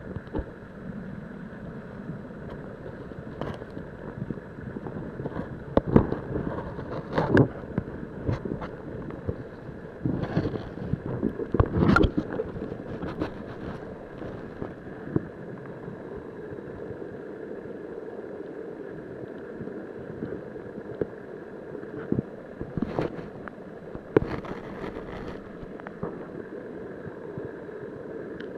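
Steady rush of river current heard through an underwater camera, with scattered knocks and clicks, the loudest about six, seven and twelve seconds in and a few more near the end.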